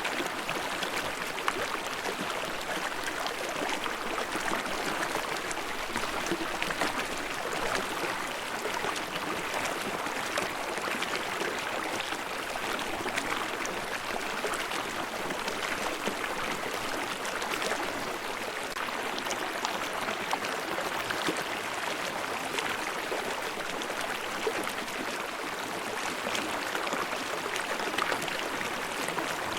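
Babbling stream running steadily, an even rush of water with small irregular splashes.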